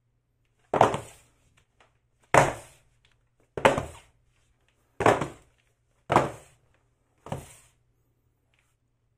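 Six heavy thunks at irregular intervals of about a second, each fading over about half a second, over a faint low steady hum.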